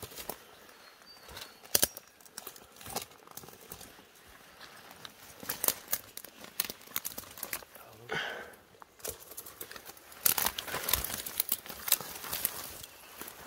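Footsteps crunching through dry leaf litter and snapping twigs in scrubby bush, with brush rustling against clothing; the crunching is busiest from about ten seconds in.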